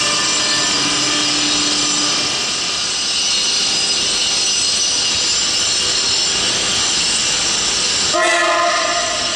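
Electric trains running through a station, a loud steady rush of locomotive and wheel noise with faint whining tones. About eight seconds in, a locomotive horn sounds once for about a second.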